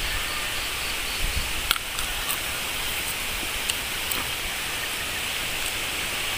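Steady outdoor background hiss with a low rumble, broken by a few faint clicks as the fruit is picked and eaten.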